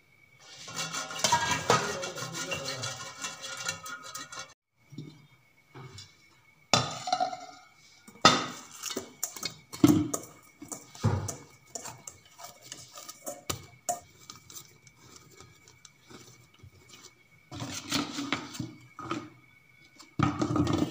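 Stainless steel and aluminium kitchenware clattering and knocking as it is handled: a steamer tray, then dough worked in a steel bowl. The clatter is dense for the first four seconds or so, then comes as scattered knocks and scrapes, over a faint steady high whine.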